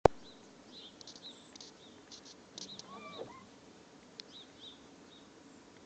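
A sharp click at the very start, then small birds chirping: short high calls repeated at irregular intervals, with a lower sliding note about three seconds in.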